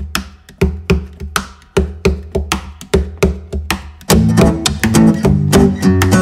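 Background music: a steady beat of sharp percussive hits over bass, joined about four seconds in by strummed guitar, which makes it fuller and louder.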